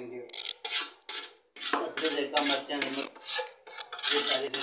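A spoon scraping round a metal pot while stirring moist cooked vegetables (cabbage, potato and peas), in repeated rasping strokes about two to three a second.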